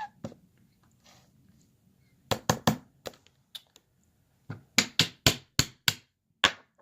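Sharp taps and clicks from a herb grinder being handled and knocked while kief is cleaned out of it: three quick taps about two seconds in, then a longer run of about three taps a second near the end.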